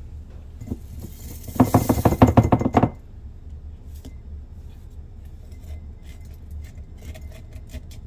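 Crisp, fully dried minced onion bits rattling and clinking into a glass mason jar off a rolled plastic mesh dehydrator sheet, with a loud burst of rapid rattling between about a second and a half and three seconds in, then scattered light ticks. The dry rattle is the sign that the onions are fully dried.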